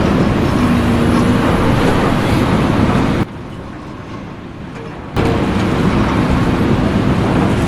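Loud, steady engine or machinery noise with a faint hum. It drops suddenly to a much quieter background about three seconds in and returns just as suddenly about two seconds later.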